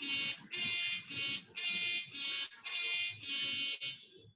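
Phone alarm-clock app ringing: a repeating electronic beep, about two pulses a second. It cuts off by itself about four seconds in, the alarm stopping straight away without being dismissed.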